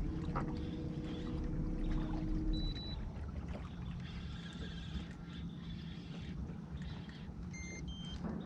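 Boat motor running steadily while under way, a low rumble with a steady hum whose pitch drops a little about three seconds in. A few short high beeps near the end.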